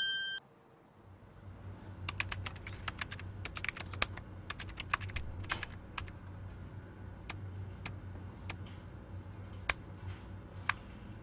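Computer keyboard keys clicking: a quick irregular run of typing, then single key presses about a second apart as letters are deleted one by one, over a faint low hum.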